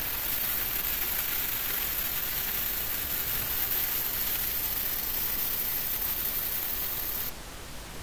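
MIG welder arc running on the steel of a propane cylinder as a steady hiss for about seven seconds, then cutting off suddenly. The welder then blames a poor earth connection.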